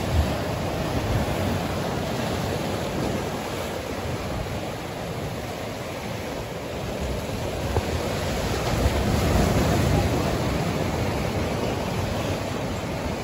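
Sea surf washing over and around boulders on a rocky shore: a steady rush that swells about nine seconds in, with low rumbling gusts of wind on the microphone.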